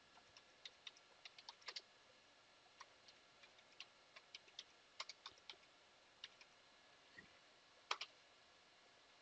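Computer keyboard typing faintly: scattered single keystrokes, with one sharper key press about eight seconds in.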